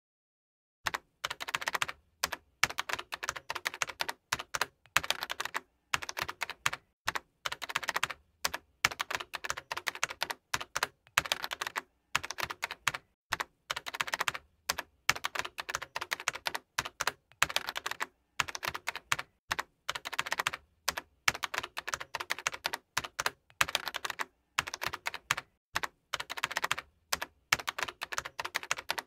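Computer keyboard typing: quick runs of keystrokes in bursts of about a second, with short pauses between, starting about a second in.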